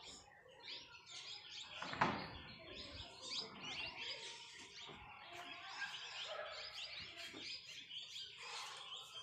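Small birds chirping and twittering continuously, with a single thump about two seconds in.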